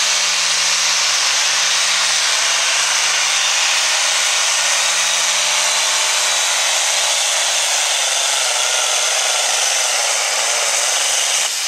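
Turbocharged diesel engine of an International 1066 pulling tractor at full throttle, pulling a weight-transfer sled. It is a loud, steady, rushing engine and turbo noise, and the engine note sags slowly as the sled's load builds. Near the end there is a short dip in loudness.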